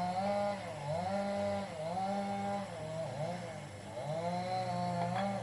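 Two-stroke chainsaw engine running, its pitch holding high in stretches and dipping and recovering roughly once a second, with a sharp click near the end.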